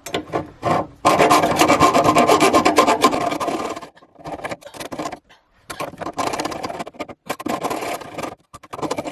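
Mini bimetal hacksaw sawing with rapid back-and-forth strokes through a nail end sticking out of a cabinet. It comes in two bouts, the first starting about a second in, with a pause of about two seconds between them.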